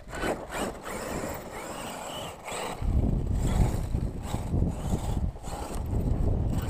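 Wind buffeting the microphone, a low rumble that turns loud about three seconds in.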